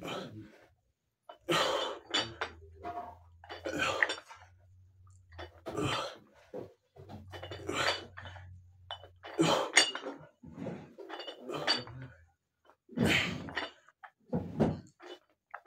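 Metal plates of chrome adjustable dumbbells clinking over and over as they are lifted and lowered through repeated reps, with hard exhales between.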